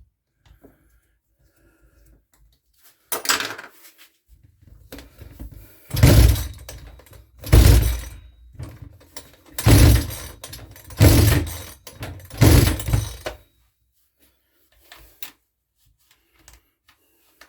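Recoil starter of a Makita EM2600 two-stroke strimmer engine being yanked about six times in quick succession, each pull a short, loud rasping burst. The engine does not catch and keep running between pulls: it is failing to start.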